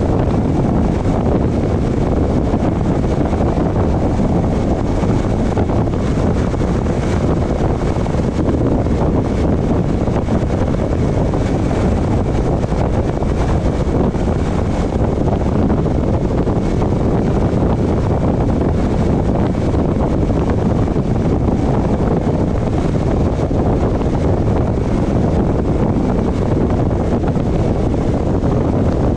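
Steady road and wind noise from a car driving, with a faint steady high whine running through it.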